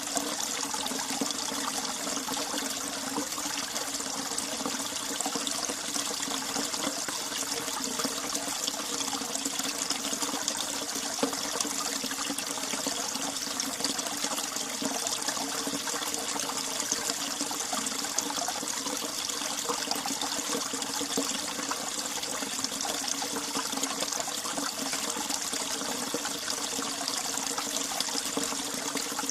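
Winter mountain valley stream flowing steadily, a continuous even rush and trickle of water.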